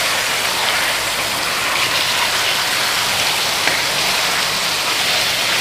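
Raw boneless chicken thigh pieces sizzling steadily in hot desi ghee in a large aluminium pot, turned with a wooden spatula.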